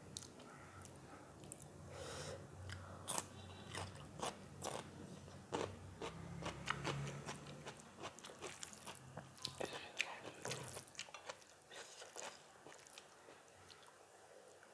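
A person chewing and biting crunchy food close to the microphone, with many irregular wet crunches and mouth clicks, busiest through the middle and thinning out near the end.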